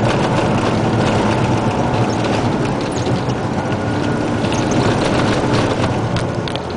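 Isuzu Giga dump truck's 380 PS diesel engine running as the truck rolls over a rough gravel track, with the cab rattling and clattering continuously and loose gravel clicking under the tyres.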